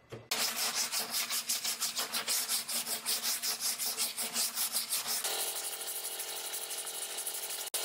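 Hand sanding of body filler on a car hood: sandpaper rubbing over the filler in rapid, even back-and-forth strokes, several a second. About five seconds in the sound turns thinner as the stroke changes.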